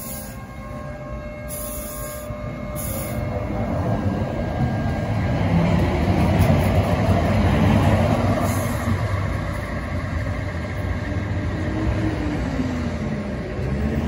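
Sheffield Supertram tram running along the track, its rolling noise swelling to a peak about six to eight seconds in and then easing, over a steady electric whine.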